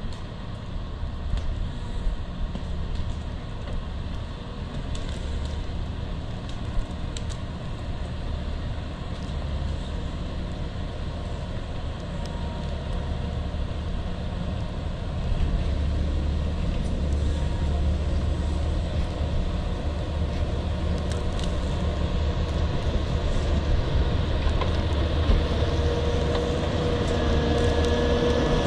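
Caterpillar 140M motor grader's diesel engine running steadily and growing louder as the grader comes close.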